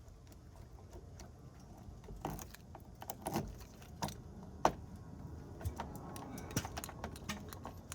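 A bunch of keys jangling and a series of small, scattered metal clicks as a key is worked into the door-handle lock cylinder of a Mercedes-Benz 190E, the sharpest click just past halfway.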